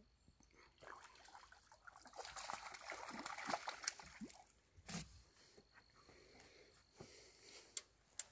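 A hooked trout splashing and thrashing at the water's surface beside a dock, loudest about two to four seconds in, with a single sharp knock about five seconds in.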